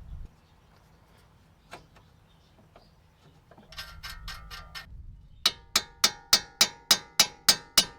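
Ratchet wrench clicking metal on metal: a short quick run of clicks just before the middle, then loud, evenly spaced clicks about three or four a second, each with a brief metallic ring.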